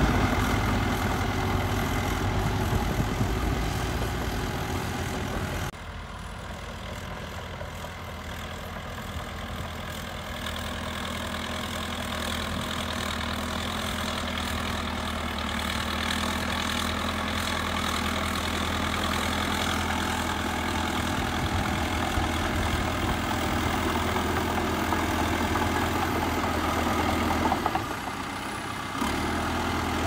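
Caterpillar D3K2 crawler bulldozer's diesel engine running steadily while pushing dirt. The sound changes abruptly about six seconds in and again briefly near the end.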